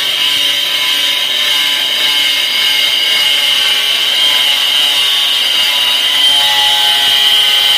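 Angle grinder with a diamond disc cutting through a ceramic floor tile: a loud, steady, high-pitched whine with a gritty cutting hiss.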